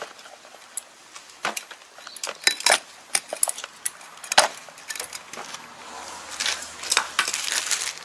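Clicks, taps and knocks of a screwdriver and gloved hands working the plastic safety guard off a tractor PTO driveshaft, the screwdriver tip pushed into the guard's lock hole. Near the end there is a busier stretch of scraping and rattling.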